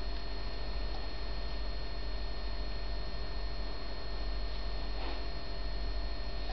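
Steady low electrical hum with a faint, steady high whine above it.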